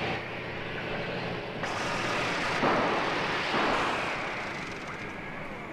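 Delivery truck engines running and pulling away, coughing and belching, in a rough rumble that swells a few times.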